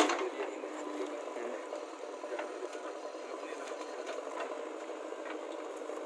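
Heavy diesel machinery running steadily: a JCB backhoe loader working beside a tractor. There is a sharp knock right at the start and scattered light clicks after it.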